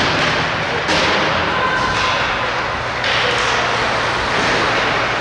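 Ice hockey game noise in a rink: a steady noisy rush, broken by sudden knocks about one second and three seconds in.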